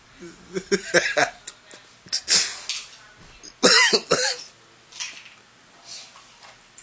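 A person's wheezing laughter broken by coughs, coming in several short fits. The loudest fits are about two and a half and about four seconds in.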